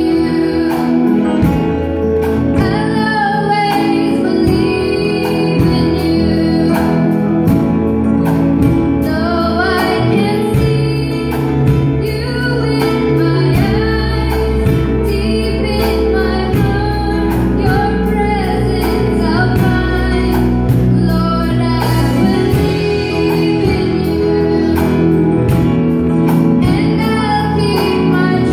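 A young girl singing a gospel song into a handheld microphone over instrumental accompaniment with a steady beat.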